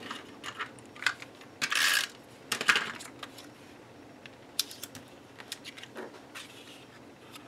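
Light clicks and taps with a short rustle about two seconds in, from hands handling a sheet of epoxy stickers on a cutting mat.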